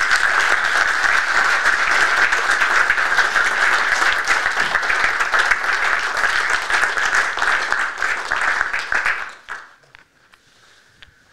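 Audience applauding, a dense patter of hand claps that fades out about nine seconds in.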